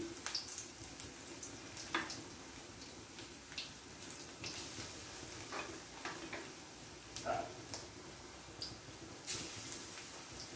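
Pakoras frying in hot oil in a steel wok: a steady sizzle with scattered sharp pops and clicks.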